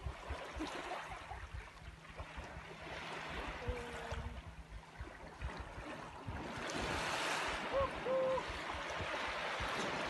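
Small waves washing up on a sandy beach, the surf hiss swelling twice, with wind rumbling on the microphone. Two brief whistle-like tones sound about four seconds in and again near eight seconds.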